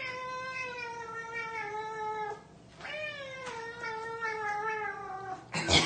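A cat yowling: two long, drawn-out meows of about two seconds each, their pitch sliding slowly downward. A short, loud noisy burst comes near the end.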